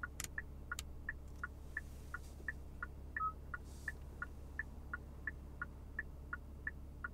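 Car turn-signal indicator ticking evenly, about three ticks a second in an alternating tick-tock, over a low steady cabin hum. Two sharp clicks come within the first second and a short beep about three seconds in.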